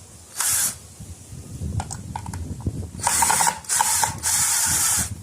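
105-degree right-angle screwdriver being turned on a screw, its mechanism clicking in five short runs: one just under a second in, then four close together in the last two seconds.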